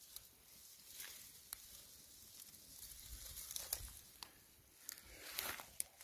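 Dry grass stalks rustling and crackling faintly as a hand parts them, with scattered light clicks and a soft swell of rustle in the second half.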